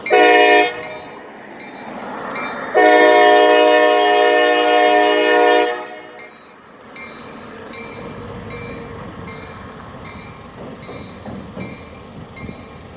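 CSX locomotive 2686's air horn gives a short blast and then, about two seconds later, a long three-second blast, the closing short–long of a grade-crossing signal. Then the train rumbles and clacks past. Through it all, a crossing bell dings steadily about every two-thirds of a second.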